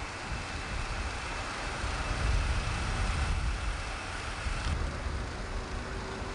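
Outdoor ambience of road traffic with wind rumbling on the camcorder microphone.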